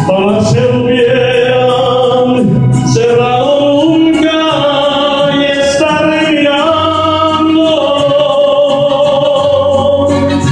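A man singing into a microphone over accompanying music, holding long sustained notes.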